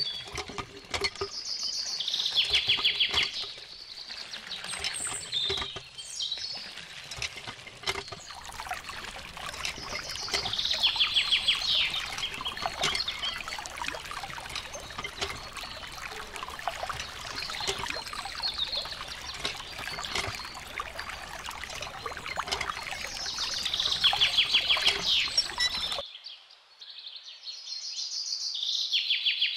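Water pouring and trickling steadily, with a songbird's rapid trill sounding loudly several times. The water stops suddenly near the end while the bird trills once more.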